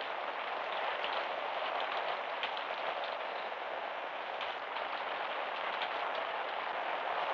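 Steady rain falling, an even hiss with scattered small drop ticks, on an old band-limited film soundtrack.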